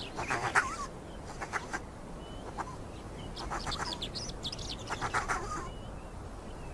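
Honey badger cub begging: a series of short, high-pitched calls in repeated bursts.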